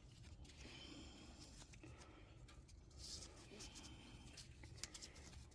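Near silence: faint rubbing and a few light clicks of a small multi-tool being handled.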